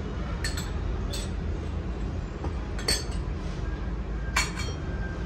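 Kitchenware clinking four times, short sharp ringing clinks, over a steady low rumble.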